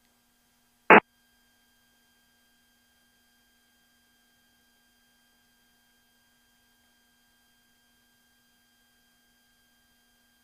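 Faint steady electrical hum on a light aircraft's radio and intercom audio, broken once about a second in by a single short, loud pop.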